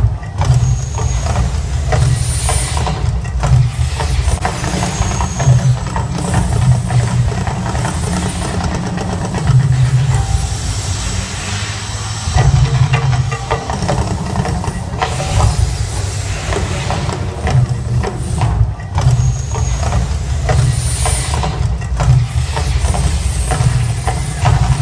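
Mirage volcano eruption show: a loud, continuous deep rumble that swells and eases, with hissing surges several times as the fire effects flare.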